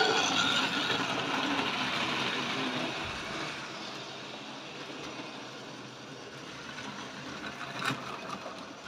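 Electric motor of a 1950s Tri-ang model locomotive whirring as it runs off the turntable onto the track, growing slowly quieter. A single sharp click sounds near the end.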